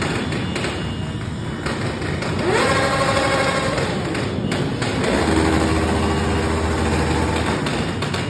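A large group of motorcycles idling together, with two bikes revving: one engine rises in pitch about two and a half seconds in and holds, and another holds a steady rev for a couple of seconds past the middle.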